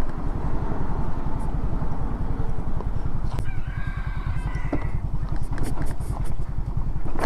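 A rooster crowing once, about three seconds in, for roughly two seconds, over a vehicle engine running with a steady, even low pulse.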